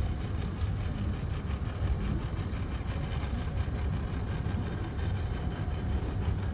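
Boat engine running steadily, a low, even rumble.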